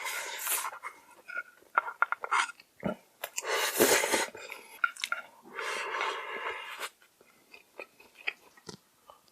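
Close-up eating of noodles: chewing with small wet clicks, broken by three longer noisy rushes of about a second each, then quieter chewing near the end.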